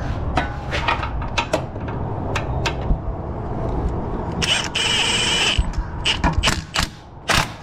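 Metal clinks of sockets and extensions being fitted, then about four and a half seconds in a Milwaukee cordless impact wrench runs briefly, about a second, driving home the steering shaft bolt at the rack and pinion, followed by a few sharp knocks.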